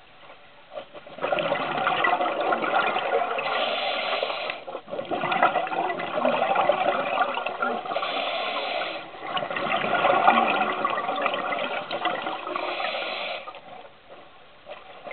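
A scuba diver's regulator exhaling underwater, with bubbles gushing out in three long breaths of about four seconds each. A short pause comes before the first and between each breath.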